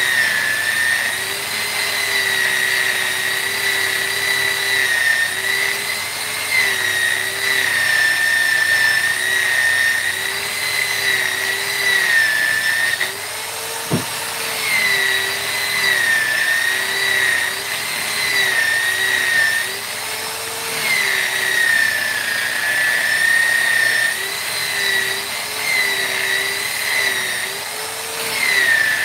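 High-speed electric rotary carving tool whining as it cuts wood, its pitch dipping and recovering as it is pressed into the work. It stops for about a second near the middle, with a click, then runs up again.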